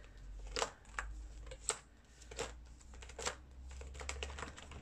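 Hands handling a ring binder and its plastic zip wallet: a series of soft clicks and rustles, about one a second.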